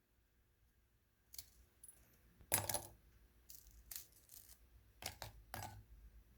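A handful of sharp clinks and knocks of kitchenware being handled, such as a spoon or cookies against a ceramic mug. The loudest comes about two and a half seconds in, with smaller ones around it.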